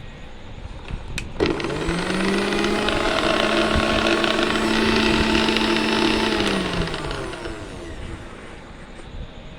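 Mixer grinder's electric motor: a click, then it spins up to a steady high whine about a second and a half in. It runs steadily for about four seconds, then winds down in falling pitch and coasts to a stop.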